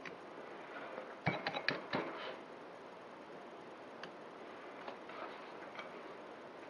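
A quick run of small sharp clicks and taps about a second in, then a few scattered ticks: the soldering iron tip and desoldering tools working against the solder pads of a drone's power distribution board.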